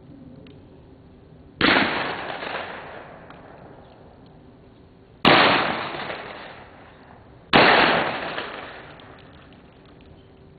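Three shotgun shots, the second about three and a half seconds after the first and the third about two seconds after that, each ringing out and dying away over a second or so.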